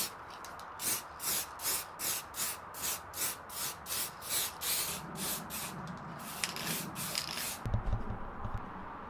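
Aerosol spray-paint can hissing in short, quick bursts, about three a second, as black paint is sprayed onto plastic car bonnet vents. A few low bumps come near the end.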